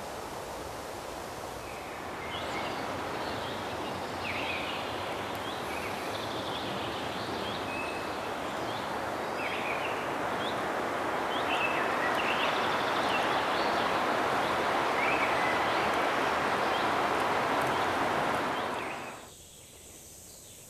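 Forest ambience: a steady rushing of wind through the treetops with many short bird chirps scattered over it. It grows louder about two seconds in and cuts off near the end.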